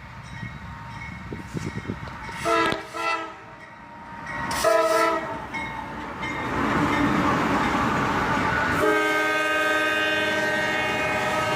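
Lead locomotive's air horn, a GE AC44CW, sounding a horn show: two short blasts, then a long held blast from about nine seconds in. The horn sounds several notes at once, over the rumble of the approaching freight train.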